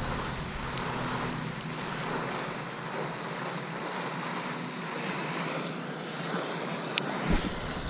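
Steady wind noise on the microphone, with a sharp click about seven seconds in.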